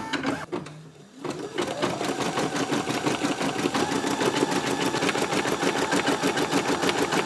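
Embroidery machine starting a design. After a few clicks, its motor speeds up in a rising whine about a second in, then it settles into steady stitching with a rapid, even needle rhythm.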